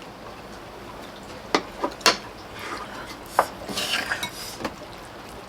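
Utensils clinking and scraping against a pot and bowls while stew is scooped out. There are a few sharp clinks, with a short scraping stretch about two-thirds of the way through.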